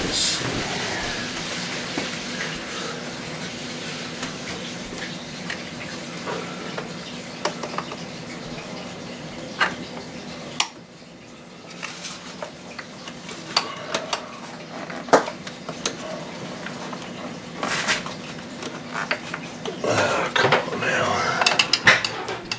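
Screwdriver clicking and scraping against plastic fuel-injector wiring-harness clips as they are pried loose, in scattered sharp clicks and knocks that come thickest near the end. A steady background hum underneath drops away about halfway through.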